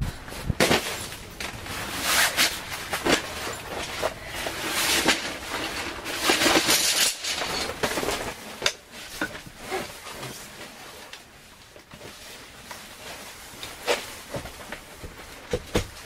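Folding camp cot being set up: repeated clicks and snaps from its frame and support poles over rustling of the cot fabric, busiest and loudest in the first half.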